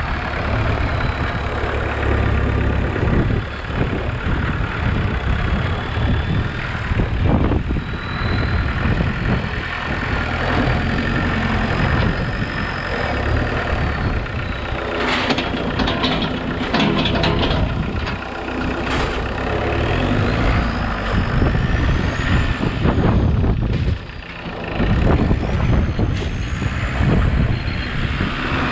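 Homemade 4x4 tractor's engine running while driving, its revs rising and falling, with a high whine that glides up and down over it. A run of sharp rattles comes about halfway, and the sound dips briefly near the end.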